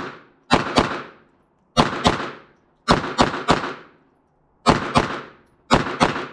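Glock 44 .22 LR pistol firing about eleven shots, mostly in quick pairs and one triple, each shot trailing off in a short echo. The pistol cycles through the string without a stoppage.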